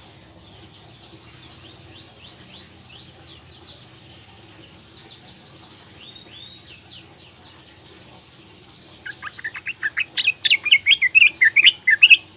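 Young female yellow-vented bulbul calling: faint, short high chirps for the first several seconds, then about nine seconds in a loud, rapid run of chattering chirps lasting about three seconds.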